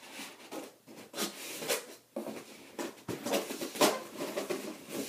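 Cardboard box and styrofoam packing rustling, scraping and knocking as hands work inside an open box, irregularly, with a sharper knock nearly four seconds in.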